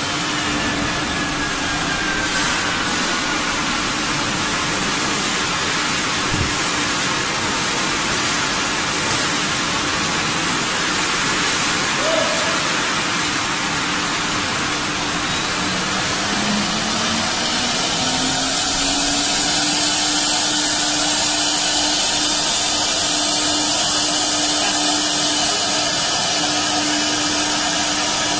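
Three-spindle CNC wood router running, its spindles cutting into a wooden door board with a steady loud hiss. A humming tone rises in pitch about sixteen seconds in and then holds steady.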